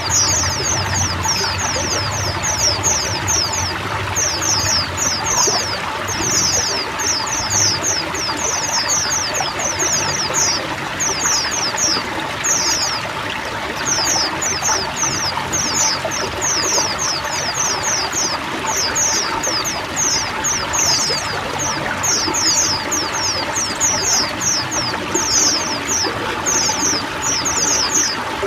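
Running water pouring steadily, with a flock of white-eyes chattering over it in quick runs of short, high, falling notes.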